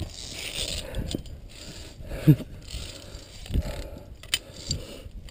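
Via ferrata carabiners clicking and scraping against the steel safety cable as a climber moves along it and re-clips, a few sharp metallic clicks.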